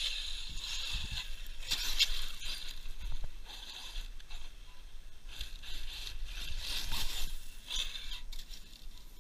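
Brushless motor and drivetrain of a 6S ARRMA Siren RC truck whining in repeated throttle bursts as it drives over gravel, swelling and fading a few times.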